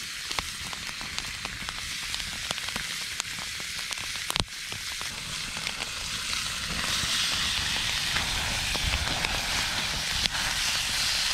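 Pieces of venison frying in a hot pan over a campfire: a steady sizzle scattered with small crackles and one sharper tick about four seconds in. The sizzle grows louder about halfway through.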